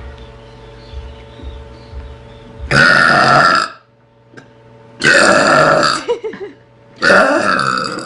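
A girl belching loudly three times, each belch about a second long and about two seconds apart.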